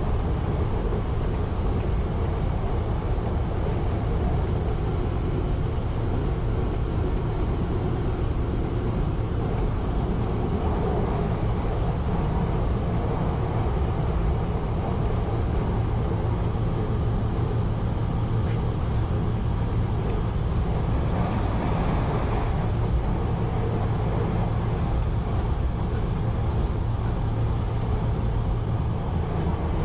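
A 1920s CPH railmotor running along the line: a steady engine and running rumble with a low hum that grows stronger about halfway through.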